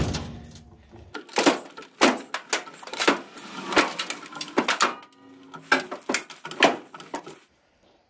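Hydraulic floor jack being pumped to force a steel plate to bend: a run of irregular sharp metallic clanks and clicks, some ringing briefly, that stops suddenly near the end.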